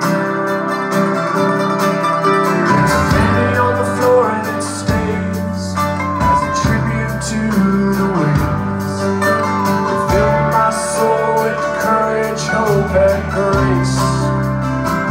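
Live pop-rock band playing a song, with guitars over an electric bass; the low end fills out about three seconds in.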